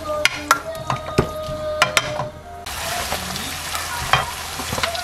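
Sliced pork and onions sizzling in a frying pan while being stirred with a wooden spatula, which knocks and scrapes against the pan again and again. The sizzle dips briefly a little past halfway.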